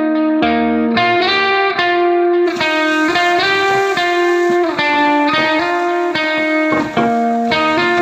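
Background music: a melody of plucked guitar-like notes that change every half second or so.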